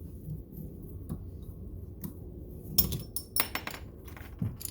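Copper pipe being cut: small metallic clicks and clinks from the cutter and pipe, with louder clinks a little under three seconds in and again about half a second later.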